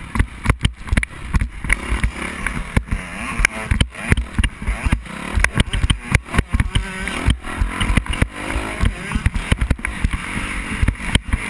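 Dirt bike engine running on a motocross track, rising and falling in pitch as the rider works the throttle. Heavy wind buffeting and irregular knocks from bumps hit the rider-worn action camera's microphone.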